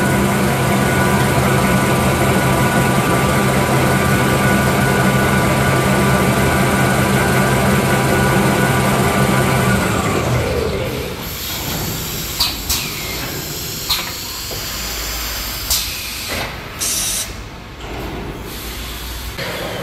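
Automatic kitchen-towel paper rewinding line running at speed: a steady mechanical hum with several held tones. About halfway through the hum falls away, leaving a quieter running noise broken by sharp clunks and clicks.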